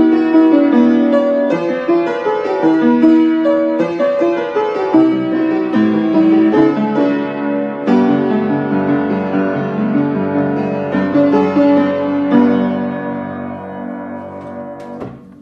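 Upright piano played by a student: a moderate-tempo piece with melody over chords, ending on a final chord about twelve and a half seconds in that rings and fades away over the last few seconds.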